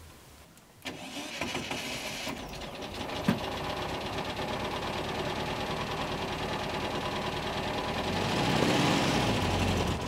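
Volkswagen Kombi (Type 2) van engine starting up about a second in and running under throttle. It revs harder near the end as the van is driven to pull its rear wheel out over a wood block and sticks laid for traction.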